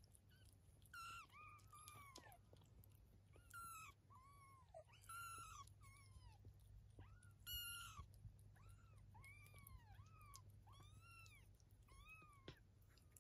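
A 23-day-old kitten mewing repeatedly: about a dozen short, high mews, each rising and then falling in pitch, with a few louder, harsher ones in the first eight seconds.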